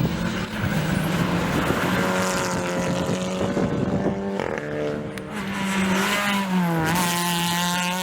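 Rally car engine running hard at high revs, its pitch holding steady for seconds at a time and stepping up and down several times, with a brief dip about seven seconds in. A burst of hiss at the same moment fits tyre or gravel noise.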